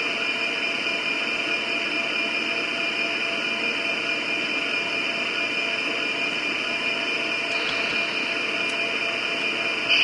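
HO-scale model diesel locomotive's MRC sound decoder playing a steady diesel engine idle while the locomotive stands still.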